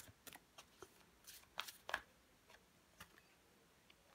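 Tarot cards being shuffled and handled by hand: faint, irregular flicks and slides of card on card, with a few sharper snaps about a second and a half in.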